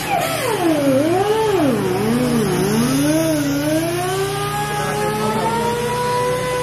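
A motor or engine whose pitch drops sharply at the start, wavers up and down, then climbs slowly and holds steady, over a low steady hum.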